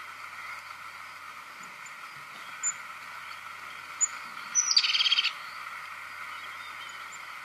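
Recording of a crested tit calling: a few thin, high, short notes, then about five seconds in, a short rolling trill.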